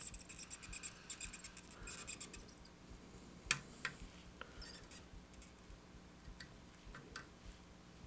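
Faint scratching crackle from a soldering iron tip worked over solder and flux on a PS4 circuit board's pads, dense for the first couple of seconds, then a few sharp clicks, the loudest about three and a half seconds in.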